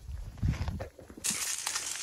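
A few dull thuds and rustles, then, a little over a second in, a sudden steady sizzling of meat grilling in a wire basket over a wood-burning tent stove.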